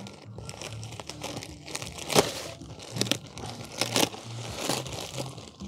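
Plastic bag crinkling and rustling as a wad of steel wool is pulled out of it, with sharper crackles about two, three and four seconds in.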